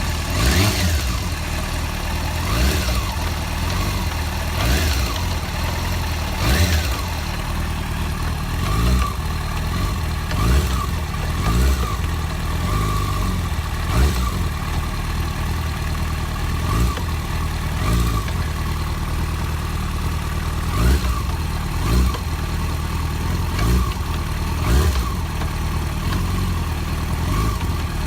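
Yamaha FZ6-S 600 cc inline-four engine idling, its throttle blipped sharply about every one to three seconds, each rev rising and falling quickly. The sharp blips are meant to bring out a knock in the gearbox by the front sprocket, which the owner puts down to a worn clutch basket.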